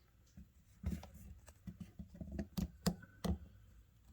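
Light handling noises: about five short taps and knocks spread over a few seconds as a marker and roadbed are worked on foam benchwork.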